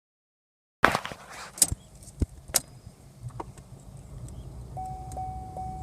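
A few sharp knocks and clicks, then, near the end, a car's electronic warning chime beeping steadily at about two and a half beeps a second.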